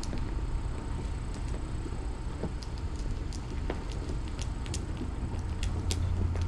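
Mother cat purring, a steady low rumble that swells a little near the end, while her newborn kittens nurse, with scattered small clicks from the suckling, shifting kittens.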